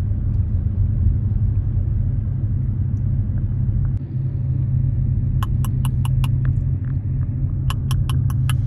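Steady low road rumble of a car driving, heard from inside the cabin. A little past the middle and again near the end comes a quick run of about five short, sharp ticks.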